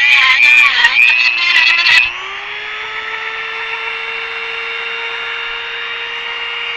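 High-speed handheld power tool cutting, its motor slowing under load with a loud screech of metal for about two seconds. It then comes free and its whine rises back to a steady, even pitch.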